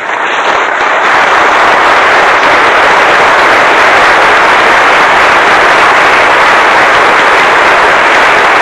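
Audience applauding loudly: dense, steady clapping that swells in over the first second and holds.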